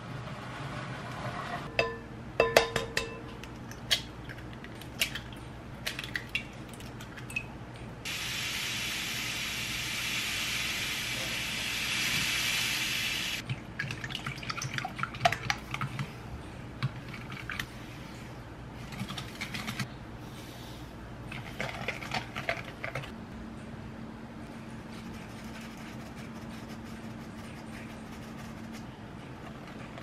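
Kitchen handling sounds: scattered clicks and taps, then a few seconds of running water that starts and stops abruptly about eight seconds in. After that comes a whisk clicking against a glass mixing bowl as eggs and sugar are beaten together.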